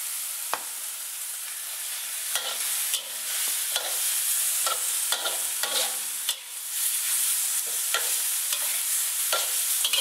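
Prawns, seafood and tofu sizzling in a hot wok over a gas burner, with a metal spatula scraping and clacking against the wok at irregular intervals as the food is stir-fried.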